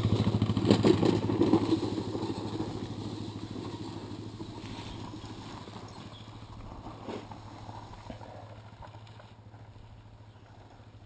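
125 cc Yamaha trail motorcycle engine running as the bike rides off down a steep dirt trail, fading steadily into the distance, with a few knocks over stones in the first couple of seconds.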